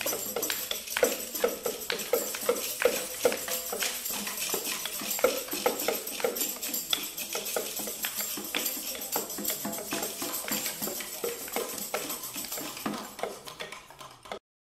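Students' experimental ensemble piece: a dense clatter of overlapping taps and knocks mixed with short pitched notes. It fades out over the last couple of seconds.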